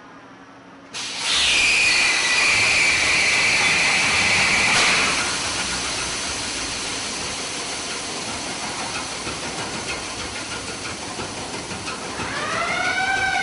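A MAN B&W two-stroke diesel engine starting. About a second in comes a sudden loud blast of hiss, typical of the compressed starting air these engines use. After about four more seconds it eases into a steady running noise, and near the end a tone rises and then falls.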